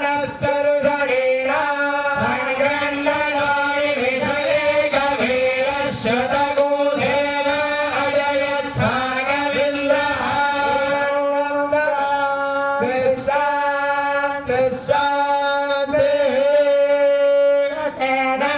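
A male voice singing a Hindu devotional chant in long, held notes.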